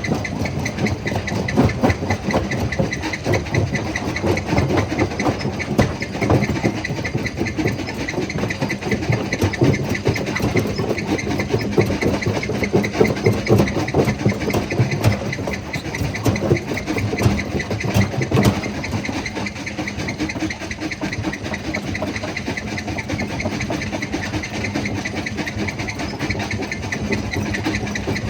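Jaw crusher running and crushing stone: a steady machine drone under dense, irregular cracking and knocking of rock. The cracking thins out about two-thirds of the way through, leaving mostly the steady run of the crusher.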